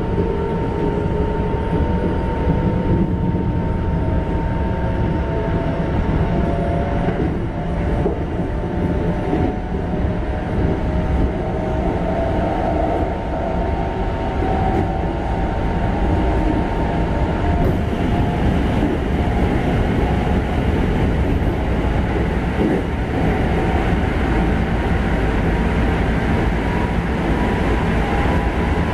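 Running noise inside a Keikyu 1500 series motor car with Mitsubishi GTO-VVVF control. The inverter and traction motor whine rises in pitch over the first dozen seconds as the train gathers speed, over a steady rumble of wheels on rail. A higher steady tone fades out a little past halfway.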